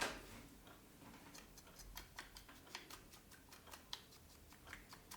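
Faint, irregular light clicks and ticks of small objects being handled, with a sharper click at the very start.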